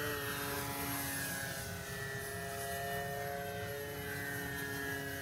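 Multiplex FunCub RC plane's brushless electric motor and propeller whining steadily in flight, the pitch sinking slightly over the last few seconds.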